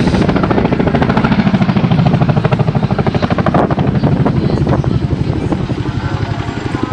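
Helicopter rotor blades beating in a fast, steady rhythm, easing off a little near the end.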